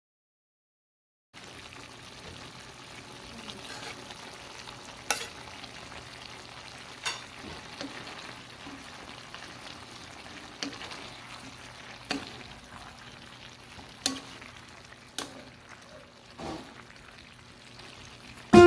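Pork and vegetables sizzling in a metal pan while being stirred with a metal spatula, starting about a second in. Sharp knocks of the spatula against the pan come every second or two.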